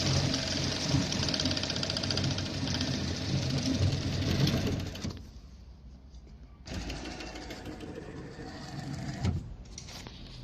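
Industrial tape edge binding sewing machine running at speed, the needle stitching rapidly. It stops about halfway through, then runs again more quietly for a couple of seconds and stops.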